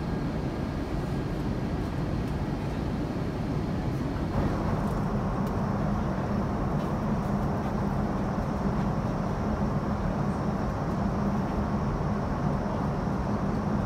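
Steady cabin noise inside an Airbus A350-900 airliner, with a low hum that becomes stronger about four seconds in.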